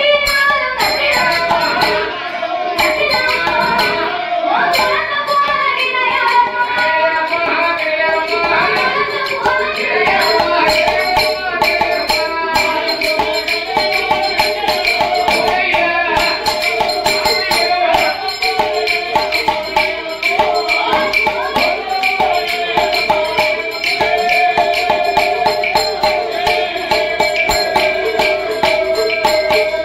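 Villupattu folk music: fast, steady jingling percussion under long held melody notes.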